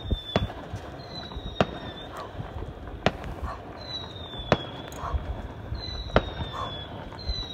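Fireworks display: about six sharp bangs roughly every one and a half seconds, each coming just after a short high whistle that drops slightly in pitch.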